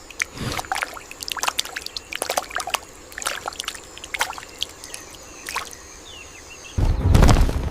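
Small irregular splashes and drips of trickling water, over a faint steady high-pitched whine. Near the end, loud music starts with a deep boom.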